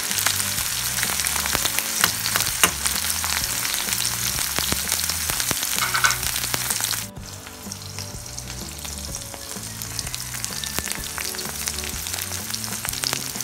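Small dried salted fish (tuyo) sizzling and crackling as they fry in hot oil in a wok, being crisped. About seven seconds in the sizzle suddenly drops quieter and carries on more softly.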